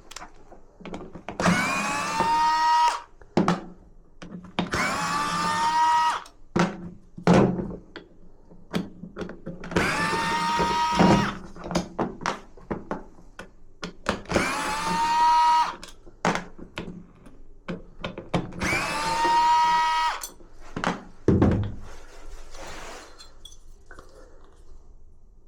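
A small handheld electric power tool runs in five short bursts of about a second and a half. Each burst spins up to a steady high whine. Clicks and knocks come between the bursts.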